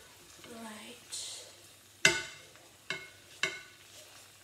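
A utensil knocking against a frying pan while the egg is checked: three sharp clinks with a short ring, the loudest about two seconds in. A brief hiss comes about a second in.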